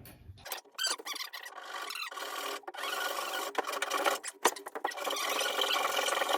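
A hand tool rasping a wooden axe handle: continuous scraping strokes with a few short breaks.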